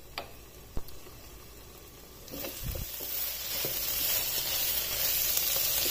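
Two light clicks, then from about two seconds in, minced beef keema with peas sizzling in a nonstick frying pan as a wooden spoon stirs it, with a few low knocks of the spoon against the pan.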